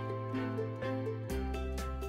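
Soft instrumental background music: a regular run of short notes over a held bass note, which changes to a lower one about two-thirds of the way through.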